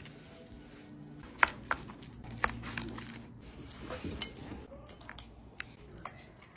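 Scattered light clicks and taps of spoons against dishes and crab shell while eating, a few sharp ones standing out.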